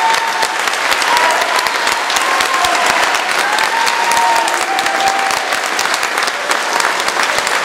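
Audience applauding steadily after a choir performance, a dense patter of many hands clapping, with a few voices calling out above it.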